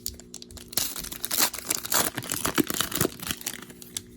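Wrapper of a Panini Revolution basketball card pack crinkling and tearing as it is torn open by hand, in dense, irregular crackles that are busiest in the middle of the stretch.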